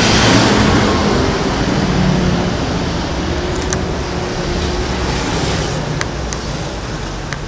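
Road traffic noise from a vehicle passing close by, loudest at the start and slowly fading, with a low engine tone in it.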